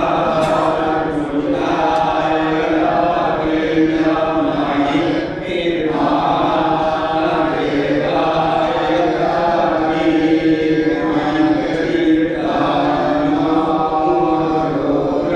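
A group of voices chanting Hindu mantras to Shiva in unison. The chant is steady and sustained, dipping briefly a few times.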